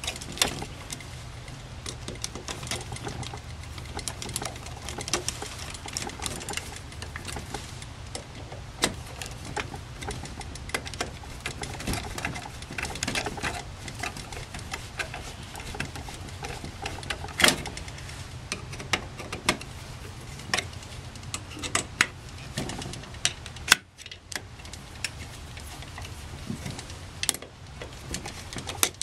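Screwdriver tightening the top-cover screws of a Rochester Monojet one-barrel carburetor: a run of small, irregular metal-on-metal clicks and ticks, a few sharper than the rest, over a steady low hum.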